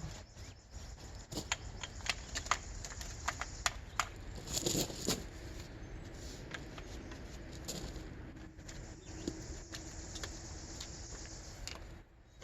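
Hands working on a folded bicycle: scattered sharp clicks and light metal knocks, with a brief louder clatter about five seconds in. A faint steady hum runs under the second half.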